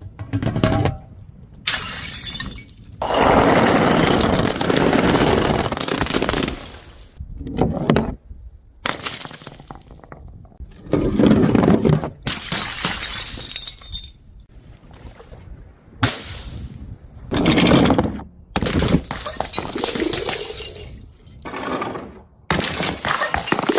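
Glass bottles and jars breaking and being crushed, about a dozen separate crunching, shattering bursts one after another, most a second or two long and one lasting about four seconds, each cut off abruptly by a short silent gap.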